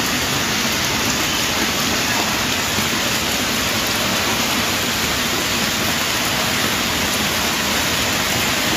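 Heavy downpour: rain pouring steadily in a dense, even hiss.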